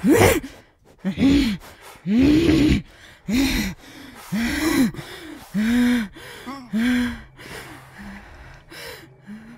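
A woman gasping in distress, a voiced breath about once a second, each rising and falling in pitch, growing fainter near the end.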